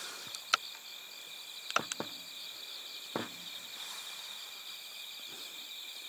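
Steady, high-pitched night chorus of crickets and other insects, with a few brief clicks about half a second, two seconds and three seconds in.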